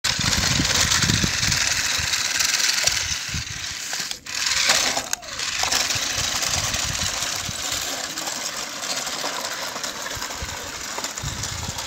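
Electric motor and gearbox of an eight-wheel RC rock crawler whirring under load as it tows a toy dump truck, with the plastic wheels rattling over concrete. The whir drops out briefly twice, about four and five seconds in.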